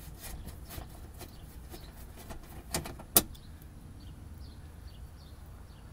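Faint clicks and scrapes of a screwdriver working a threaded screw in a car's underbody splash shield, with a sharp click about three seconds in, over a low steady rumble.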